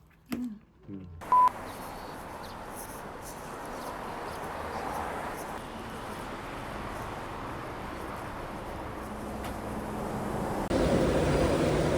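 A short, loud electronic beep about a second in, then a steady rushing background noise that steps up in loudness near the end.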